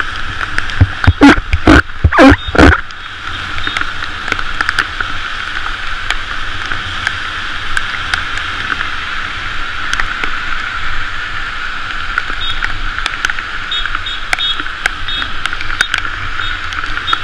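Steady road noise from a bicycle riding on wet pavement: the hiss of tyres on the wet road with wind rumble and traffic around. A few loud, short sounds come about one to three seconds in.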